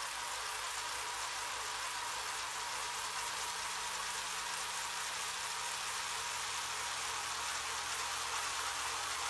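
A steady, even hiss with a low hum underneath, growing a little louder near the end.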